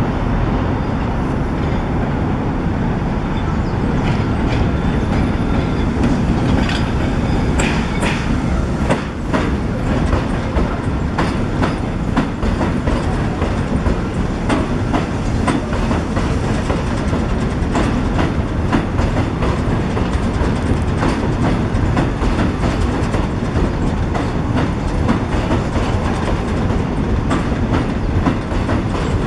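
R62A subway train pulling into the station and running past, with a steady loud rumble and repeated sharp clacks of its wheels over the rail joints.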